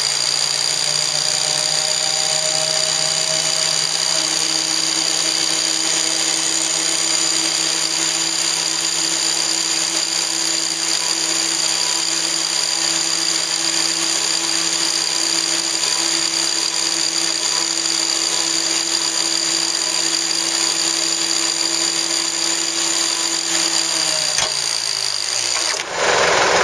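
Warn 8274 winch driven by twin 6 hp Warn XP electric motors, running steadily under light load as it spools synthetic rope onto the drum, with a steady motor and gear whine. The whine drops in pitch and winds down about 24 seconds in, followed by a click and a short burst of noise near the end.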